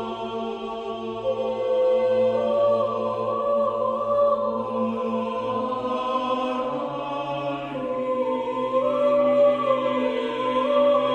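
Chamber choir singing long held chords without words, the upper voices moving slowly from note to note over a steady low note.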